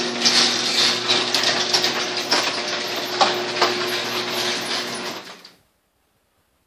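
Electric garage door opener running as the door goes up: a steady motor hum with the chain drive and door panels rattling and clicking. It cuts off abruptly about five seconds in.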